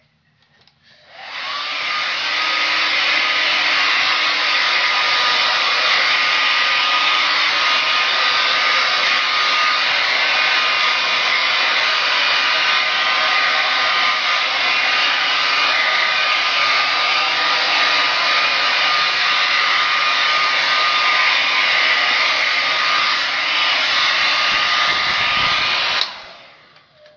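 Handheld hair dryer drying hair: switched on about a second in, it runs with a steady rush of air and a thin motor whine, then is switched off abruptly near the end.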